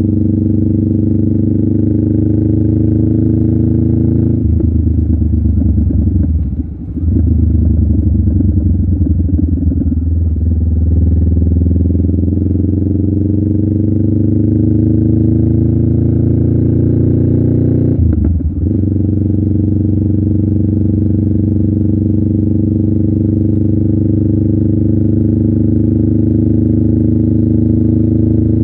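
Honda Rebel 500's parallel-twin engine running through a Vance & Hines aftermarket muffler, a deep steady exhaust note. About four seconds in the note changes, with a brief dip near seven seconds; the pitch then climbs slowly for several seconds before dropping off abruptly, and the engine settles back to a steady note.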